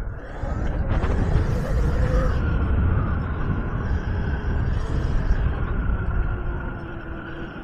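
Wind rumbling on the camera microphone while riding an electric pit bike, with a faint whine from the electric motor that rises in pitch about a second in and then eases off.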